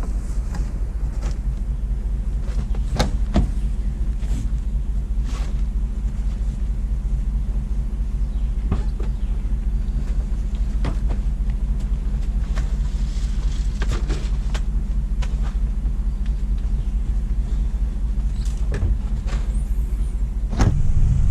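Road vehicle running, heard from inside the cabin: a steady low engine and road rumble, with scattered short clicks and knocks.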